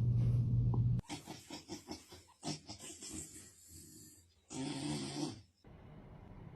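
A pet snoring: a run of short, quick breaths, then one longer, louder snore about four and a half seconds in. A steady low hum fills the first second before it.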